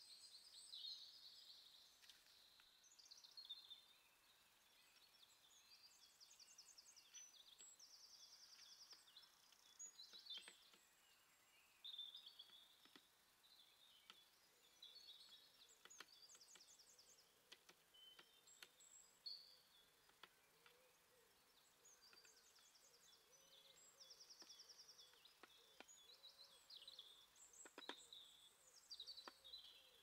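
Faint songs and calls of several small songbirds overlapping: high chirps and rapid trills in short phrases. A few faint taps or knocks come through here and there.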